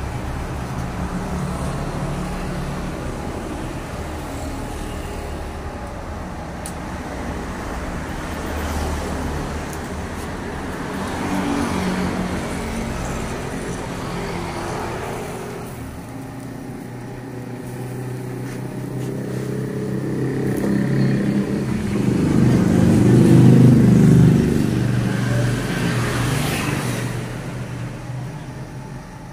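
Motor vehicles passing on a road close by, each one swelling and fading. The loudest goes by in the last third, over a steady low rumble.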